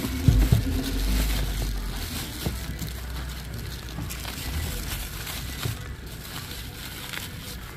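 Bubble wrap crinkling and cardboard box flaps rustling as packaging is handled and bubble-wrapped connecting rods are pulled out of a box, with a couple of soft thumps in the first half second.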